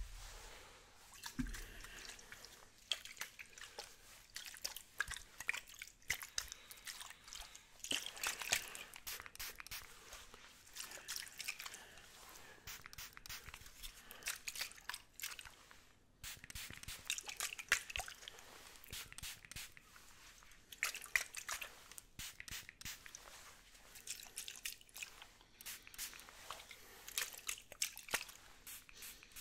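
Spray bottle worked close to the microphone: a series of short hissing sprays with clicks and crackles between them.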